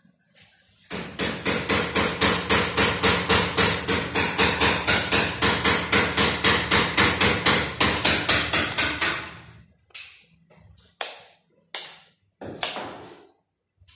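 Hammer blows struck rapidly and evenly, about four to five a second, for around eight seconds before fading off, followed by four single, separate blows.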